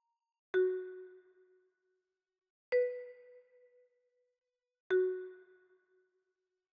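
Three electronic chime tones about two seconds apart, each struck and ringing out within about a second, the middle one a little higher in pitch than the first and last.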